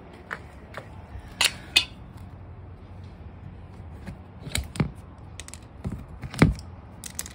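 Clear plastic clothes storage case used as a compost bin, its lid being handled: a string of irregular sharp plastic clicks and taps, the loudest about two-thirds of the way through.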